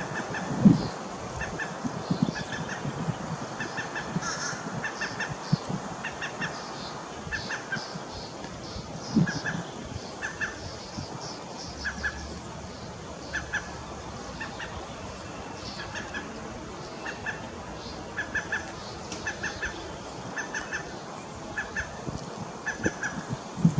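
Waterfowl calling: short calls in quick pairs and threes, repeated every second or so over a steady background hiss, with a few low thumps.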